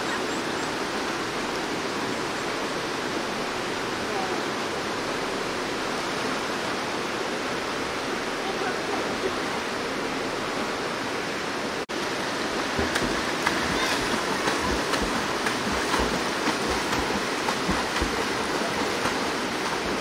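Mountain-stream rapids rushing steadily. About halfway through the sound briefly drops out, then the rush comes back a little louder, with scattered low bumps.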